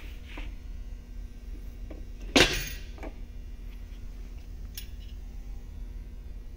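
A main bearing shell being taken out of the bare Toyota 2AR-FE engine block. It gives one sharp metallic clink with a brief ring about two and a half seconds in, and a few faint clicks around it.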